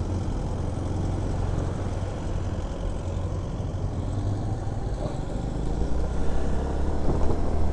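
Motor scooter being ridden through city traffic: a steady low engine rumble with road and wind noise, growing a little louder near the end.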